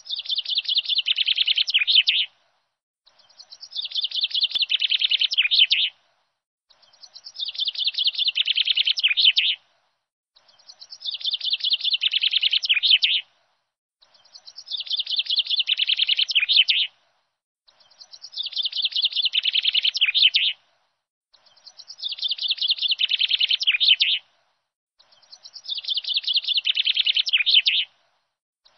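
A songbird's rapid trilling song, repeated as a loop: the same high phrase, about two and a half seconds long, swells and stops abruptly, then comes again every three to four seconds, eight times over.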